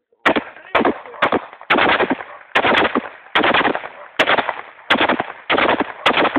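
A rapid, irregular series of loud bangs, about two a second, each with a short echoing tail: shots fired upward from a hand-held device.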